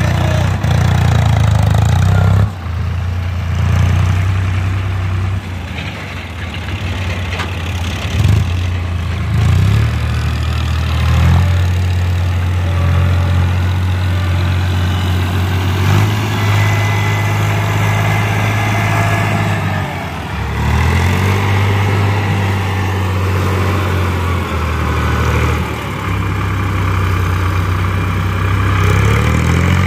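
Eicher 5660 tractor's diesel engine running close by as it hauls a loaded soil trolley, its note rising and falling several times with the throttle and briefly dropping about twenty seconds in.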